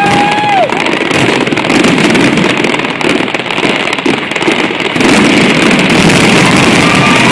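Fireworks display bursting in rapid succession: a loud, continuous rumble and crackle that grows steadier and slightly louder about five seconds in.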